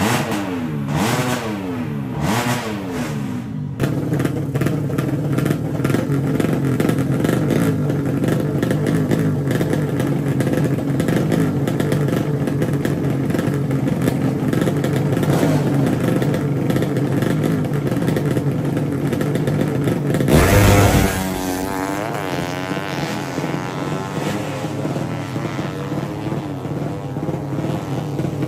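200 cc drag-racing motorcycle engines revving in short blips, then running steadily at the start line. About twenty seconds in there is a sudden loud burst as a bike is opened up hard, its pitch climbing and falling as it accelerates away.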